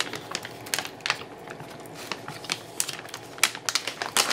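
Plastic candy bag being handled, crinkling in irregular sharp crackles, with a few louder ones near the end.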